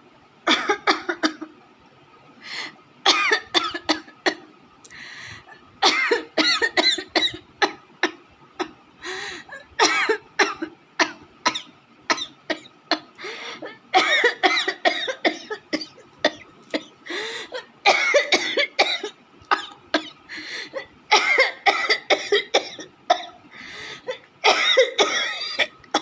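A woman coughing on purpose for a coughing challenge, over and over in runs of several coughs with short pauses between.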